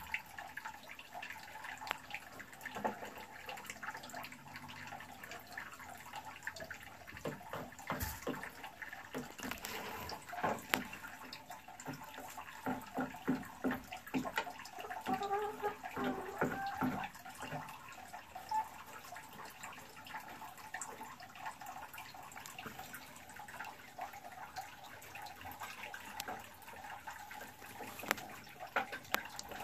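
Dry straw nesting material rustling and crackling as a hen shifts, rises and lays an egg in her nest box. The crackling is busiest in the middle stretch and sparse near the end.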